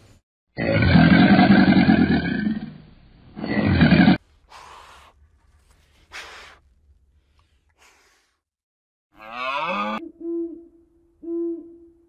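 Two deep bellowing calls from an alligator in the first four seconds, one long and one short. Near the end an owl gives a call that bends up and down in pitch, followed by two short, even hoots.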